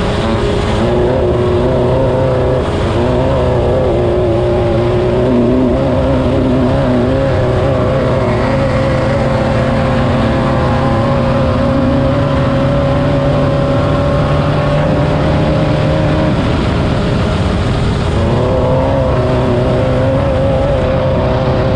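Class 9 off-road race buggy's engine running hard at steady, high revs under a dense rumble of driving noise. The revs dip briefly and pick back up about three-quarters of the way through.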